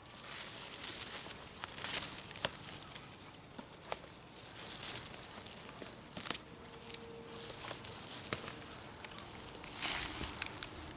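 Bush bean foliage rustling and crackling as beans are picked by hand, with scattered sharp snaps of pods breaking off and a louder rustle near the end.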